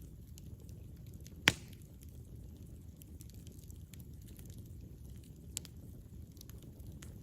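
Campfire burning with a low steady rumble and scattered small crackles. There is one sharp, loud pop about a second and a half in, and a smaller one near the end.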